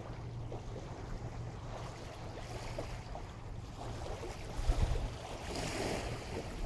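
Waves washing in at the water's edge of a tidal inlet, with wind noise on the microphone; one wave's wash swells up about five and a half seconds in.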